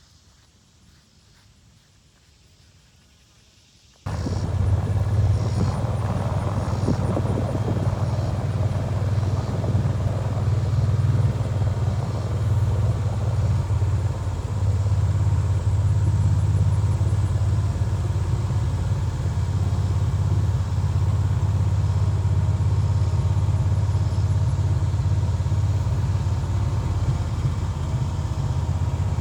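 A few seconds of faint quiet, then about four seconds in an engine suddenly comes in loud and runs steadily with a deep, even drone.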